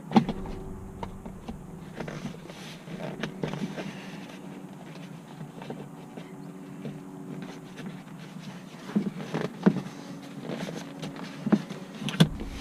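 Handling noises from fitting a cloth truck seat cover: scattered light taps and knocks, a few sharper ones near the end, over a steady low hum.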